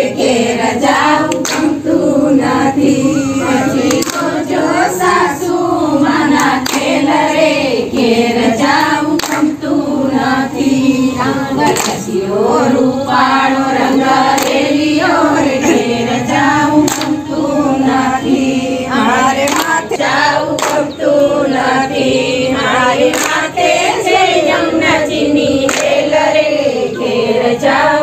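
A group of women singing a Gujarati devotional song to Krishna together, clapping their hands in time to the beat.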